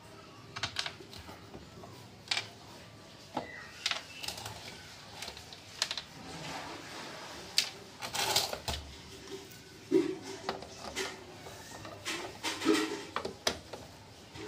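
Irregular clicks, taps and knocks of a plastic mixer grinder body and small screws being handled and fitted back together, with a few short scraping passages, during reassembly with a screwdriver.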